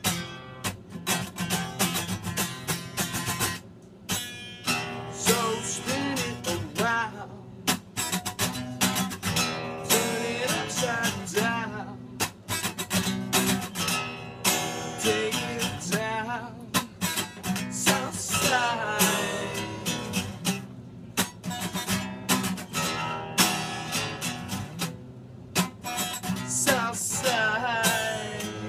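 Acoustic guitar played steadily, with a man singing over it at times.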